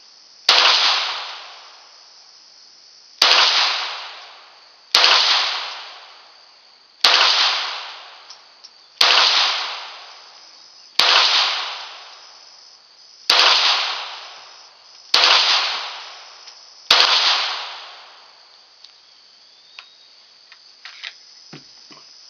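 A .22 LR Ruger Mk III 22/45 pistol firing nine single shots of CCI standard-velocity lead ammunition, about two seconds apart. Each crack trails off in a long echo. A few faint clicks come near the end.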